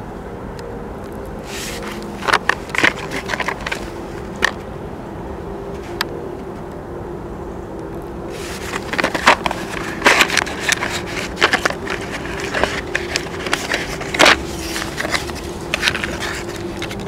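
A cardboard box handled and opened by hand: rustling, scraping and irregular light clicks of the card and of the paper-wrapped match-crackers inside, busier from about halfway through. A steady low hum runs underneath.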